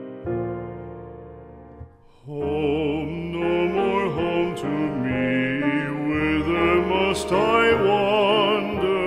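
Background music: piano notes fading out, then about two seconds in a fuller arrangement comes in with a slow melody sung or played with vibrato over sustained accompaniment.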